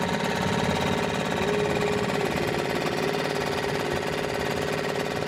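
Engine running steadily at a constant speed, with a fast, even firing pulse.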